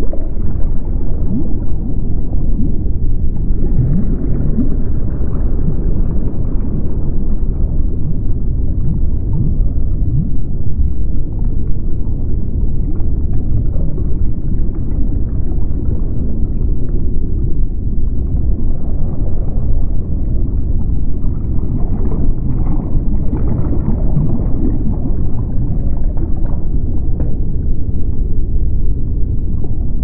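Deep underwater ambience: a steady, low rumble with muffled gurgling, all of it sitting low in pitch and with no bright highs.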